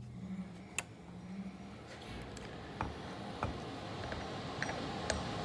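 A few light, sharp clicks and clinks of small parts being handled, over a steady hiss that comes up about two seconds in.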